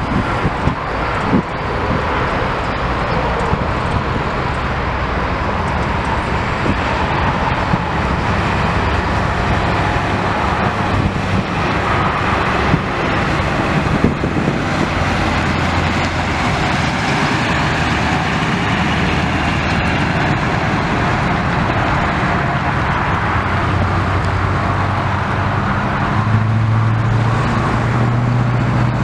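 A 1995 Ford F350's 7.3-litre V8 turbo diesel running steadily, its low engine note growing stronger near the end.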